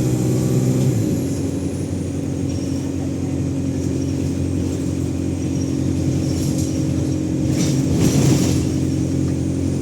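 ADL Enviro200 bus's engine running under way: about a second in the engine note drops, as with a gear change in the Allison automatic gearbox, and the turbo's high whine falls away over the next second before the engine settles to a steady note. A brief rush of noise comes about eight seconds in.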